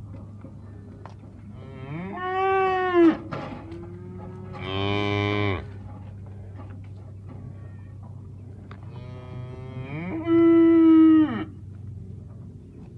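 Cows mooing: three moos about two, five and ten seconds in, each rising, holding and falling in pitch, the last the longest.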